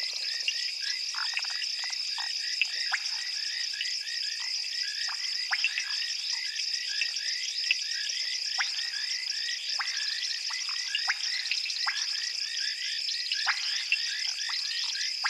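Night-time frog chorus: many short calls overlapping, several a second, over a steady high-pitched trill.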